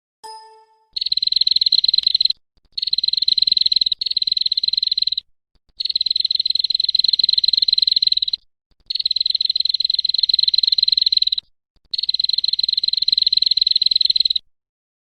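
An animal's high, buzzing trill of rapid pulses, repeated in five bouts of about two seconds each with short pauses between them. A short lower note sounds just before the first bout.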